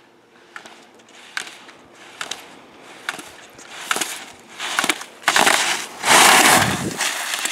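Slalom skis carving turns on hard-packed snow: a scraping hiss with a sharp start at each turn, about one a second, growing louder as the skier comes closer. The longest, loudest scrape comes about five to seven seconds in, as the skier passes close by.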